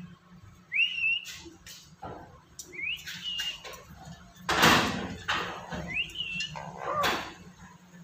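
Black-capped lory whistling a short rising note three times, about two seconds apart. A loud harsh noisy burst comes about halfway through.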